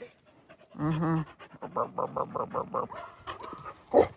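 A dog panting rapidly, about five breaths a second, after a short pitched vocal sound about a second in; a short loud sound comes near the end.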